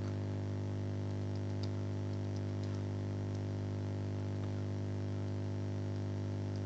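Steady low electrical hum, mains hum picked up by the recording setup, with a few faint clicks.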